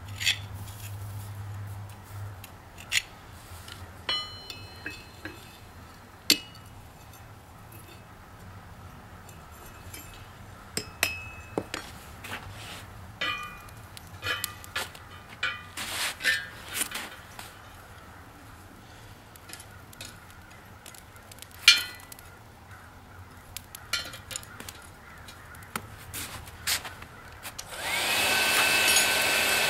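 Hammer blows and lighter taps on steel rebar at an anvil, irregular and widely spaced, some ringing briefly. Near the end a hair dryer used as the forge blower switches on and runs with a steady whine.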